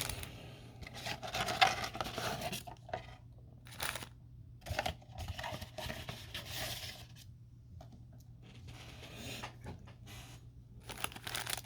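Trading-card packs being pulled out of a cardboard box: intermittent tearing, scraping and rustling of cardboard and foil wrappers, with a sharp click about a second and a half in.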